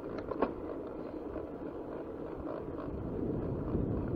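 Mountain bike rolling along a rough trail: a steady rush of wind on the action camera's microphone and tyre rumble, with a couple of sharp rattles about half a second in. The rush grows louder near the end.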